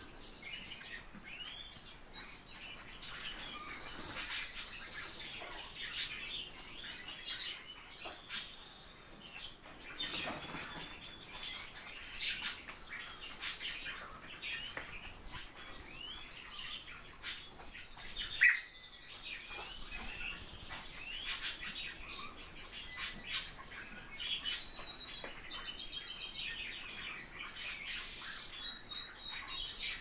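Pet thrushes calling: a steady scatter of short chirps and clicking notes, with one louder call about eighteen seconds in.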